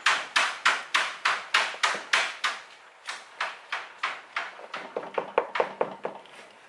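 Wire whisk beating a flour-and-milk bread dough in a plastic mixing bowl: rhythmic strokes knocking against the bowl about three times a second. There is a short break about two and a half seconds in, then softer, quicker strokes that fade near the end.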